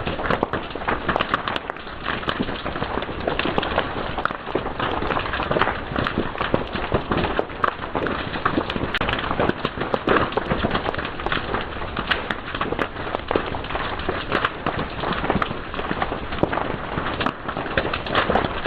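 Fire crackling and popping: many quick snaps and pops over a steady hiss.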